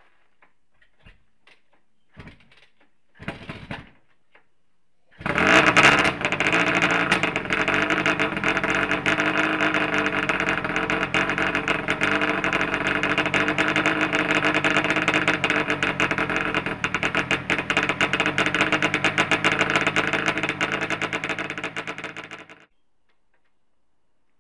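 Scott TT Replica two-stroke twin engine, its top end freshly rebuilt, being kick-started: a few kicks, then it fires about five seconds in and runs steadily at a fast, buzzy idle. It cuts off suddenly near the end.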